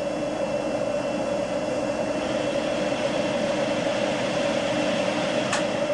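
Electric drill motor running steadily at constant speed with an undercut tool in a concrete hole, its extended blades grinding a conical undercut at the bottom of the hole under steady downward pressure. A brief click about five and a half seconds in.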